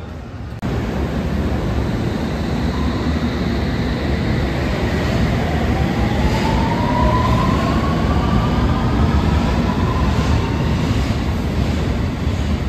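Rail train running with a steady rumble, and a whine that climbs slowly in pitch over several seconds as the train gathers speed.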